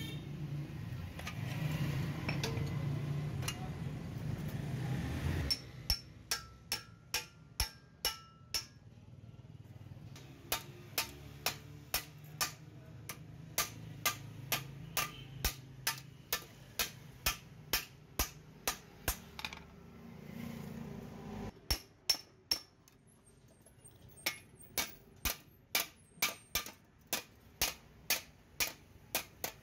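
Steel hammer striking a steel shovel blade on an anvil block, sharp metallic blows about two a second in runs with short pauses, beating the bent blade straight. The blows begin about six seconds in, after a low, steady background noise.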